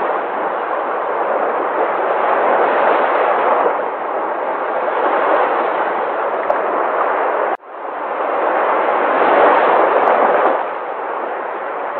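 Sea waves breaking: a loud, continuous rush of surf that swells and eases every few seconds. About seven and a half seconds in it cuts out abruptly, then fades back up.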